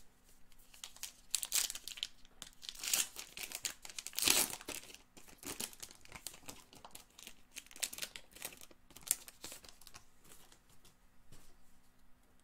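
Wrapper of a Topps Heritage Minor League baseball card pack crinkling and tearing as it is ripped open and peeled off the cards, loudest about four seconds in.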